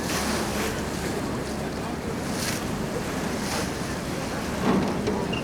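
Wind buffeting the microphone and water rushing past the hull of a tour boat under way, with the boat's engine a steady low hum underneath; the noise swells in soft gusts and is a little louder near the end.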